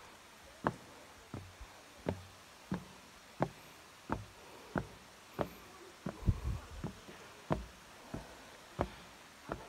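Footsteps on the treads of an outdoor trail staircase, a dull knock roughly every 0.7 seconds at a steady walking pace, with two steps close together about six seconds in.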